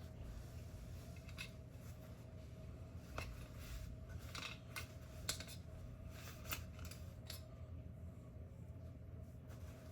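Scattered small sharp clicks and clinks, about six over several seconds, from parts and tools being handled while a GU10 track light fixture is taken apart, over a faint steady hum.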